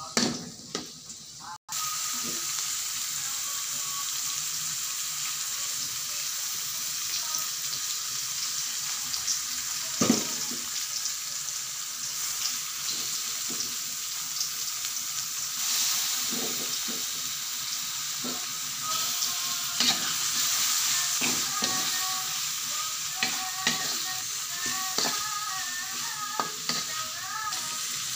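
Shrimp and sliced green chilies sizzling in a hot aluminium wok, with a metal spatula scraping and knocking against the pan as they are stirred. The sizzle starts about two seconds in, and the loudest knock comes about a third of the way through.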